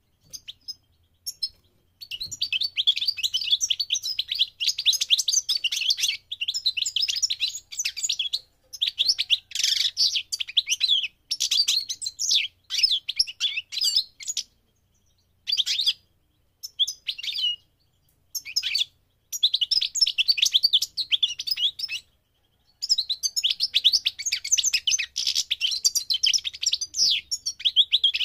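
A European goldfinch of the parva race singing. Its song comes in long runs of fast, high twittering phrases, broken by a few short pauses and single short notes.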